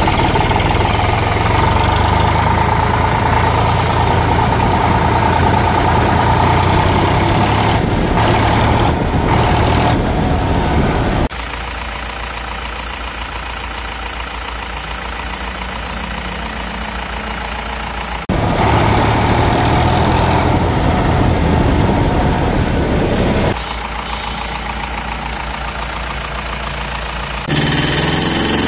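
Engine sound effect, a steady idling-type motor noise, switching abruptly between a louder and a quieter engine recording every few seconds.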